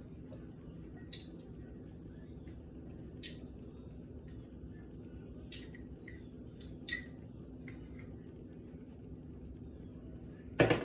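Scattered light clinks and clicks of kitchen utensils against dishes as pickles are added to a bowl of shredded lettuce, with a louder knock near the end. A steady low hum runs underneath.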